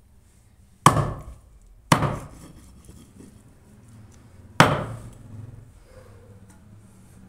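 Heavy cleaver chopping into a goat head on a wooden block: three hard strikes, the first two about a second apart and the third a few seconds later.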